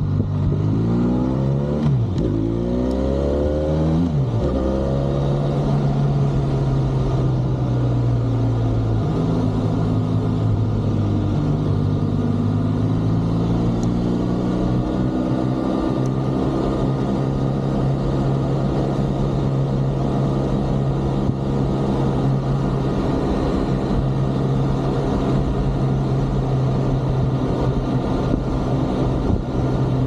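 Benelli 502C motorcycle's 500 cc parallel-twin engine under way. In the first few seconds the revs climb and drop sharply twice, as with upshifts, and after that it cruises at steady revs.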